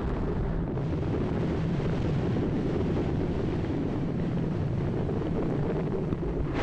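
Steady low rumble of an explosive volcanic eruption, with no separate blasts standing out.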